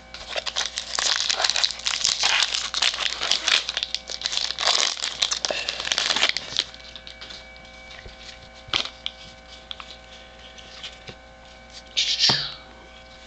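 Foil wrapper of a Topps baseball card pack being torn open and crinkled for about six seconds, then quieter card handling with a few light clicks and a short rustle near the end.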